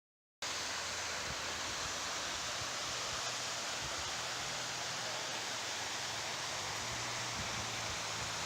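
Steady rush of a waterfall, an even hiss of falling water that starts after a brief silence.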